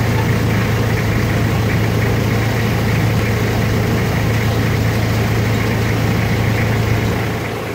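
Boat engine running steadily at an even speed, a constant low hum heard close by from on board the boat.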